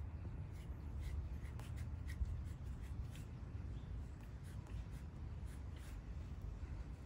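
Fly-tying thread being wrapped by hand from a bobbin around a bucktail jig's collar, making faint, irregular ticking and rubbing sounds over a low, steady rumble.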